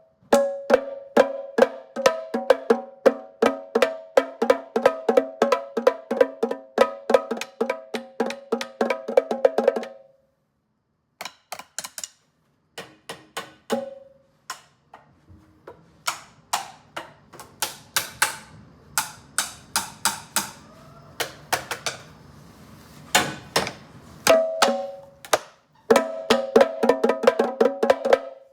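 Improvised drumming on household objects struck as drums: rapid strikes, many ringing with a pitched tone, in a dense roll for about ten seconds. After a short pause come sparser sharp knocks, then the ringing strikes return near the end.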